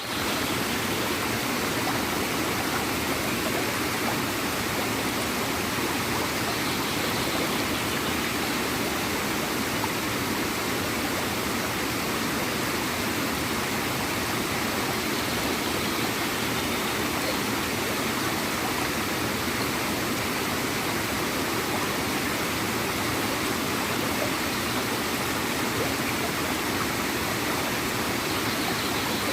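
Small waterfall splashing and gurgling steadily into a stream, a continuous, even rush of water.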